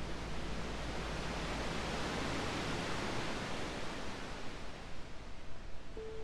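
Ocean surf: a wash of waves swelling and then ebbing away. A low musical drone fades out under it early on, and a soft held tone comes in near the end.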